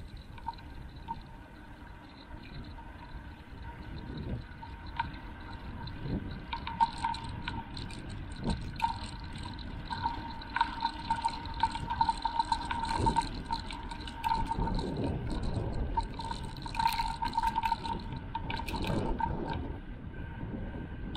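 A bicycle riding along a paved street, heard through an action camera mounted on the bike: road rumble and wind on the microphone, louder from about four seconds in as the bike picks up speed, with a thin steady whine and small rattling clicks.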